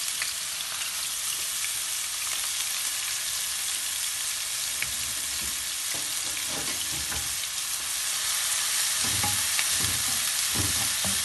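Chopped onions and green chillies sizzling steadily in hot oil in a nonstick wok. Toward the end, a wooden spatula stirring them adds soft scrapes and knocks.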